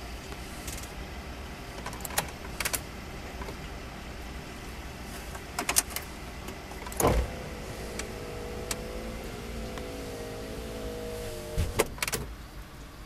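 Quiet truck cab with a low steady rumble, broken by scattered clicks and knocks of handling in the cab. The loudest is a thump about seven seconds in, followed by a faint wavering whine for about four seconds.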